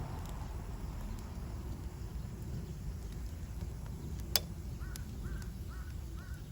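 A crow cawing in a quick run of about five caws near the end, over a steady low outdoor rumble, with a single sharp crack just before the caws.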